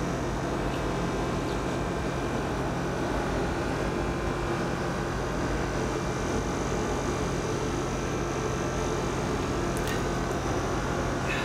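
Steady droning mechanical hum with a constant hiss, like running ventilation machinery, unchanging in level. A couple of faint ticks near the end.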